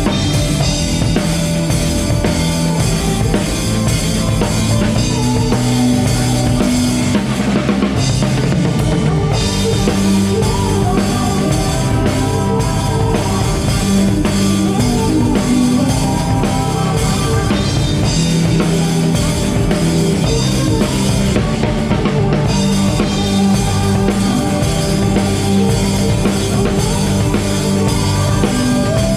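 Live band playing a song through the PA during a sound check, with a steady drum-kit beat (kick, snare, rimshots) under bass and sustained keyboard or guitar lines.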